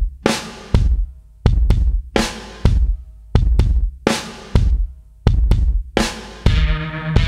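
Background music with a steady, heavy drum beat of deep bass-drum and snare hits. Sustained bass and chord tones come in near the end.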